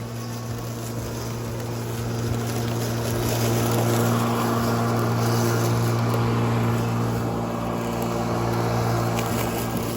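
Bosch CityMower 18 cordless battery lawnmower running with a steady motor and blade hum, growing louder for several seconds in the middle and easing off near the end.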